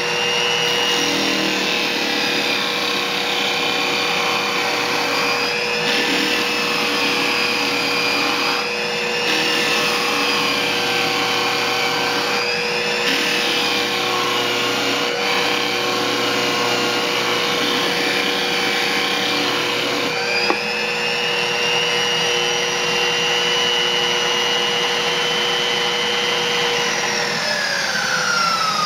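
Homemade disc sander driven by a circular-saw motor, running with a steady whine while pine is pressed against the sanding disc; the pitch sags briefly several times as the wood is pushed in. Near the end it is switched off and the whine falls steadily as the disc spins down.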